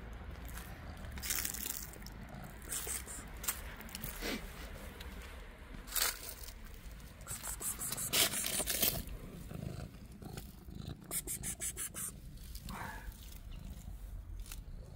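Scattered clicks and scrapes of handling and movement, with a quick run of ticks, and a short falling cat meow near the end.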